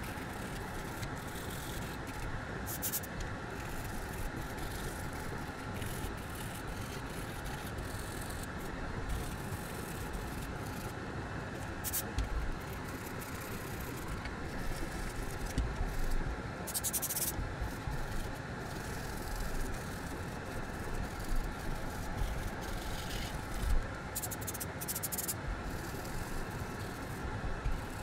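Fume extractor fan running steadily, with brief scratchy scrubbing now and then as a brush works old solder flux off a circuit board.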